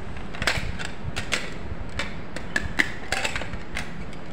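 Plastic battery cover being fitted back onto the plastic housing of an electronic blood pressure monitor: a series of light, sharp plastic clicks and taps, uneven in spacing.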